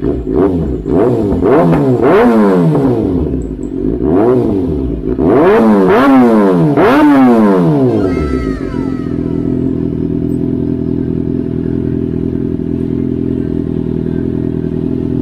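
Kawasaki Ninja ZX-6R's inline-four engine breathing through an aftermarket slip-on exhaust, revved in a series of quick throttle blips that climb and drop for about eight seconds. It then settles into a steady idle.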